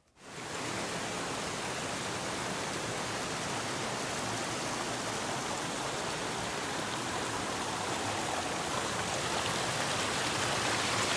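Steady rushing noise of running water, even and unbroken, starting abruptly at the start.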